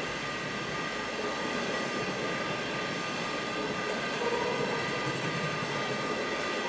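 Chinese-built long-distance passenger coaches rolling past at speed: a steady rush of wheel and rail noise with some steady high tones over it, getting a little louder about four seconds in.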